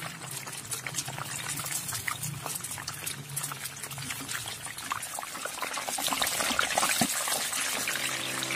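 Battered chicken wings deep-frying in hot vegetable oil: a dense, steady sizzle full of fine crackles and pops, getting a little louder toward the end.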